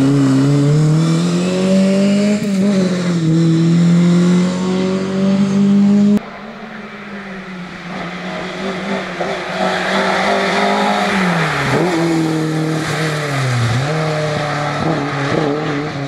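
Lada VFTS rally car's four-cylinder engine held at high revs through a bend, its pitch slowly climbing. About six seconds in it drops to a quieter, more distant sound. From there the engine note climbs, dips sharply twice and picks up again as the car approaches.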